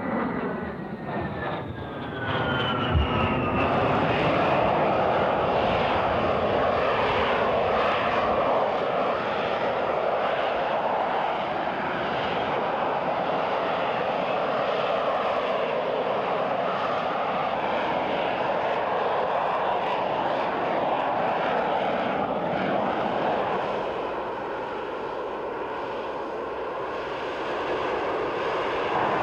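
A formation of A-10 Thunderbolt II jets passes with the whine of their TF34 turbofans falling in pitch as they go by. About three seconds in, this gives way suddenly to the loud, steady jet noise of an AV-8B Harrier's Pegasus vectored-thrust engine as it hovers with landing gear down. The noise eases slightly near the end.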